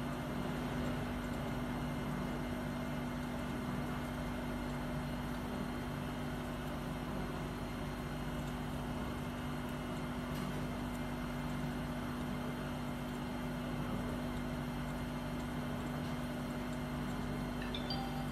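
Steady, even hum of induction brazing equipment (induction heating machine and its water-cooling chiller) running, with a low steady tone and no change in level.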